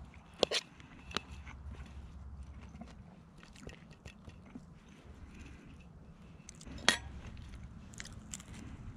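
Metal fork clicking and scraping against a plate while food is eaten, with a few sharp clinks, the loudest about seven seconds in, and chewing.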